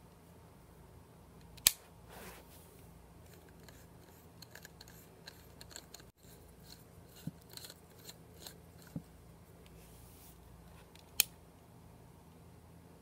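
Two sharp switch clicks about nine and a half seconds apart, with faint plastic clicks and rattles between them as a spiral compact fluorescent bulb is handled in its screw socket, over a low steady hum.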